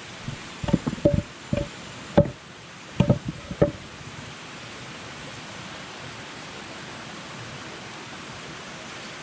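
Rocks being handled and knocked together: a quick run of sharp knocks and clacks in the first few seconds, then they stop, leaving a steady rushing noise.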